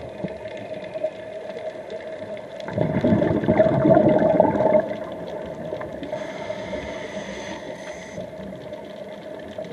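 Scuba diver breathing on a regulator underwater: a burst of exhaled bubbles gurgling for about two seconds, starting about three seconds in, then a soft high hiss of the next inhalation. A steady hum runs underneath.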